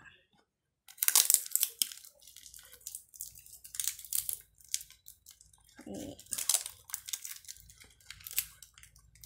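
Clear sticky tape being pulled off its roll and wound around the gathered neck of a mulberry-paper wrapping, making ripping tape peels and paper crinkling in irregular bursts.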